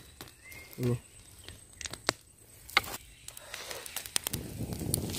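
Scattered sharp clicks and crackles as sticks of a small wood fire and chicken feet skewered on them are shifted over the embers, with rustling that builds over the second half. A brief low hum of a voice about a second in.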